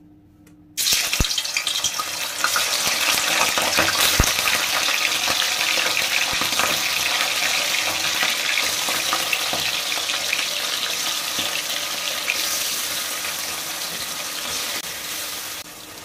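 Bone-in broiler chicken pieces dropped into hot oil in a metal kadai: a sudden loud sizzle starting about a second in, with a couple of sharp knocks as pieces land. The sizzle runs on and eases a little near the end.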